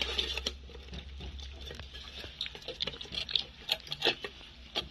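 Siberian husky puppies eating dry kibble from stainless steel bowls: a quick, irregular patter of crunching, chewing and smacking, with small clicks of kibble and teeth.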